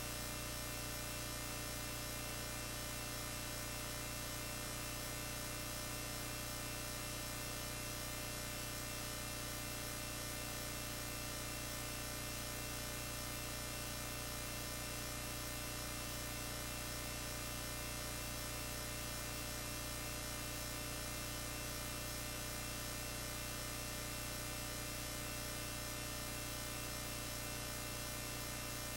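Steady electrical hum and hiss with no soundtrack over it: the noise floor of a film transfer. It goes on unchanged, with no music, voices or skating sounds.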